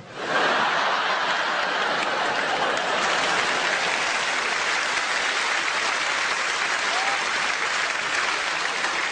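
A live audience applauding a stand-up comedian's joke: dense, steady clapping that swells up within a fraction of a second and then holds level.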